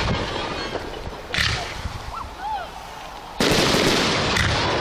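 Aerial firework shells going off: a sharp burst about a second and a half in, then a louder, longer burst from about three and a half seconds in.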